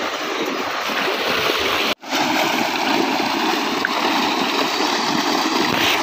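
Tubewell water gushing from its outlet pipe into a pool: a steady rushing and splashing. The sound drops out for an instant about two seconds in, then comes back louder.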